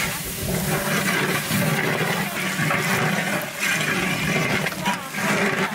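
A metal spatula stirring thick, wet curry paste in a large aluminium cooking pot, scraping and sloshing in repeated strokes.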